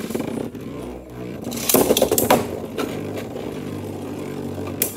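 Two Beyblade spinning tops whirring and scraping across a clear plastic stadium floor, with a low steady hum. Sharp clattering knocks come as they collide, about two seconds in and again near the end.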